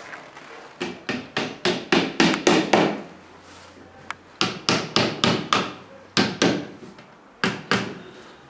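A hammer tapping parts of a flat-pack wooden shoe cabinet together during assembly. The strikes come in quick runs of about four a second, with short pauses between runs.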